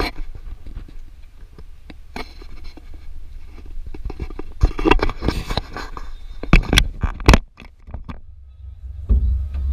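Handling noise from a GoPro being moved and mounted on the back of a convertible: a run of knocks, clicks and scrapes over a low rumble of wind on the microphone. About nine seconds in, a louder, steady low rumble comes in suddenly.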